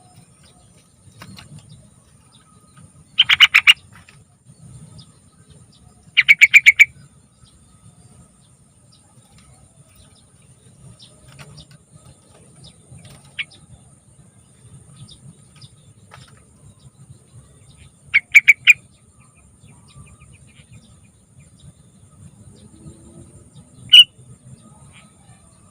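Yellow-vented bulbul (trucukan) singing three short bursts of quick, repeated notes, each about half a second long, spread through the stretch, then one sharp single note near the end.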